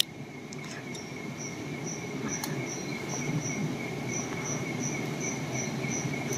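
Insects chirping: a steady high trill, with a higher chirp repeating a little more than twice a second, over a low rushing noise.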